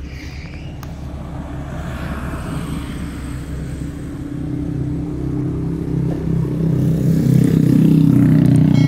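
Perodua Kancil idling with a quiet exhaust through its newly replaced rear muffler, heard from behind the car. A passing vehicle on the road grows steadily louder from about halfway and covers it near the end, louder than this car's exhaust and engine.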